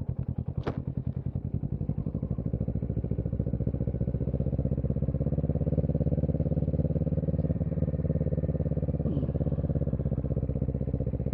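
2017 Kawasaki Z650's parallel-twin engine and Yoshimura Alpha exhaust running steadily while riding, the engine note building slightly a couple of seconds in. There is a single sharp click just under a second in. It is heard through a microphone inside the helmet.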